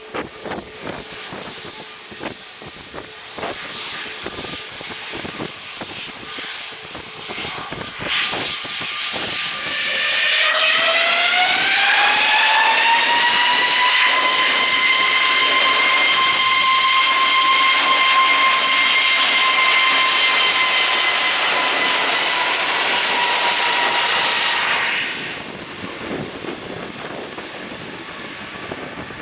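Wind buffeting the microphone in gusts, then an Airbus A321neo's jet engines spooling up: a loud whine that rises in pitch about ten seconds in, levels off and holds for some ten seconds, then cuts off suddenly.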